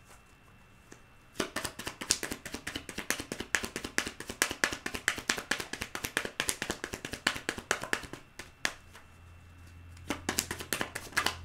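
Tarot cards being shuffled by hand: a rapid run of light card clicks starting about a second and a half in, a short pause, then another burst of shuffling near the end.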